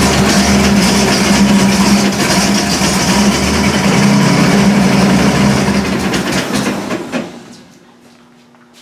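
1955 Buick 322 Nailhead V8 running steadily with the Dynaflow transmission in drive, then shut off about seven seconds in, running down to quiet.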